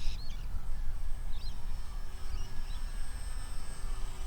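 Wind buffeting the microphone as a rough low rumble, with a few faint short bird chirps near the start and around the middle, and a faint steady high whine underneath.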